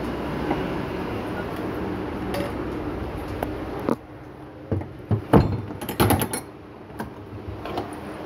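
A steady background rumble, then from about four seconds in a run of sharp knocks and clicks as the phone is handled and its microphone bumped.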